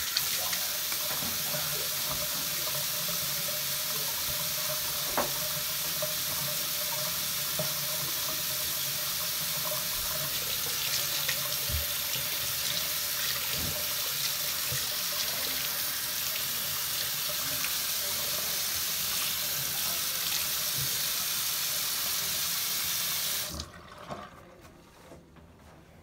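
Bathroom sink tap running hot water steadily into the basin, then turned off suddenly near the end.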